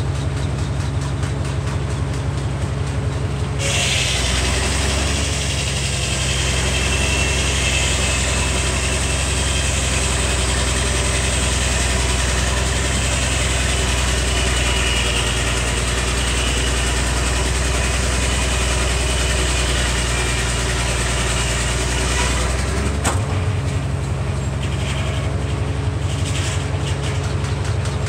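Vintage Frick circular sawmill, driven by a Minneapolis-Moline six-cylinder 605 cubic inch engine, ripping a hickory log. The engine and blade run steadily at first. About four seconds in, the blade bites into the hardwood and the loud, noisy sound of the cut continues for nearly twenty seconds, with the engine working hard under the load. A click follows as the blade clears the log, and it runs free again.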